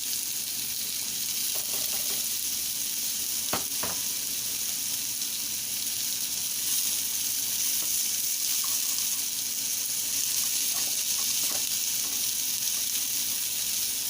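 Seasoned chicken frying and sizzling steadily as it chars. Two quick clicks sound about three and a half seconds in.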